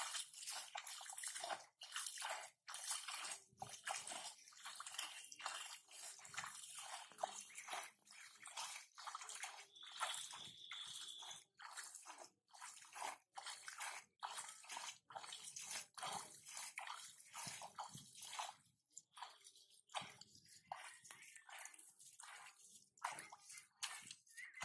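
Hands groping and splashing in shallow muddy water: a quick, irregular run of small splashes, sloshes and squelches.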